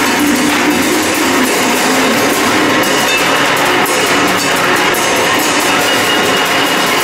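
Improvised noise music: a steady, loud, dense wall of metallic scraping and drone from cymbals laid on the floor being scraped with a stick, mixed with electronic noise from effects pedals. A low hum fades out about a second in, and a thin high tone comes and goes around the middle.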